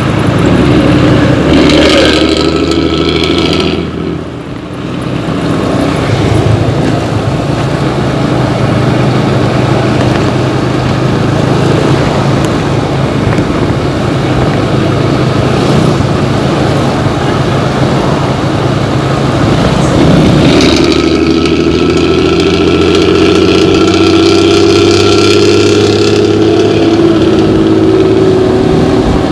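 Diesel bus engine running through a loud growling exhaust, swelling louder and slightly higher in pitch twice: briefly near the start and for several seconds later on, as if revved.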